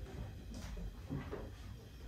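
Knife cutting into a raw whole lamb carcass on a wooden board: several short, soft, irregular slicing and tearing sounds of flesh and fat.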